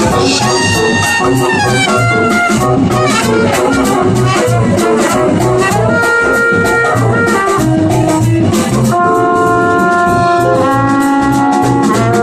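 Live jazz band playing: trumpet and trombone hold long notes in harmony over drum kit and electric bass.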